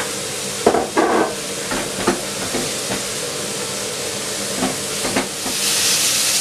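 Chopped eggplant sizzling in hot oil in a non-stick frying pan as it is stirred with a silicone spatula, with a few short knocks and scrapes of the spatula against the pan. The sizzle grows louder near the end.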